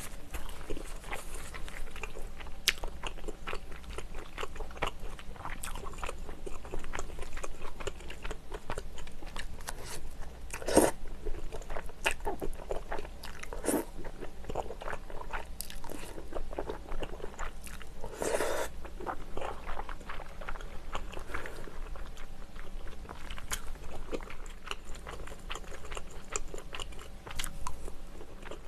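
Close-miked chewing and mouth smacking while eating braised kimchi with pork, with a few louder slurps, one of them a wide Chinese glass noodle being sucked in about halfway through.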